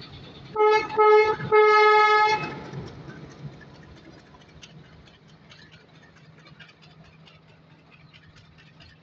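Sri Lanka Railway Class M8 diesel locomotive's horn sounding three blasts, two short and a longer one, in the first couple of seconds. Then passenger carriages roll past with a fainter steady rumble and light clicking of wheels over the rails.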